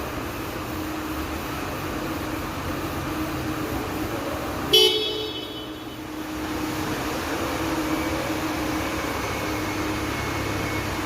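Orbital sanding machine running steadily against a car's epoxy-primed body panel. About five seconds in, a short, loud, horn-like toot cuts in, and the sanding noise drops for about a second before picking up again.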